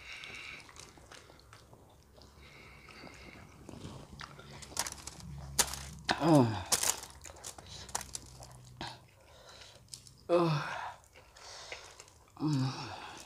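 Eating sounds: chewing, with gloved hands tearing fried chicken and picking at noodles on foil. There are a few short wordless vocal sounds, one falling in pitch about six seconds in and others near the end.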